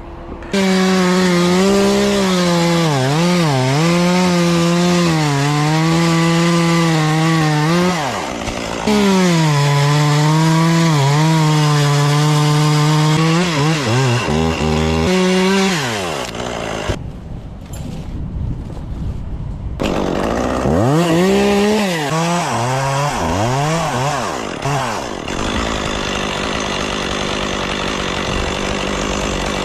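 Stihl two-stroke chainsaw running at full throttle through a cut, its pitch dipping and recovering as the chain bites into the wood, with a brief break about a quarter of the way in. Past the middle it eases off, then is revved up and down several times before settling into a steadier noise near the end.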